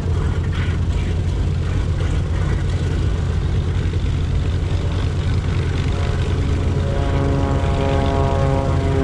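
Boeing B-17 Flying Fortress's Wright R-1820 Cyclone radial engines running with a steady, deep drone. About seven seconds in, a set of steady higher tones comes in over it.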